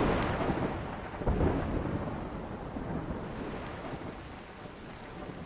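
Heavy rain pouring down with rolling thunder. The low rumble is loudest about a second and a half in, then eases under the steady downpour.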